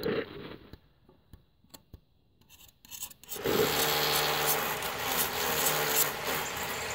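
Light scraping and clicks as a blade and rod work adhesive into the slot of a marble slab around a steel stone clip. From about three and a half seconds in, a loud continuous rasping noise with a steady low hum takes over.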